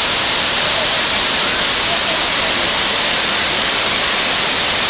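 Wide terraced waterfall in full wet-season flow, water pouring over many rock tiers into a pool: a loud, steady rush with a bright hiss on top.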